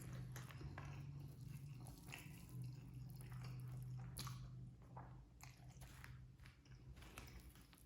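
A person chewing and biting food, with irregular small crunching and smacking clicks. A low steady hum runs underneath.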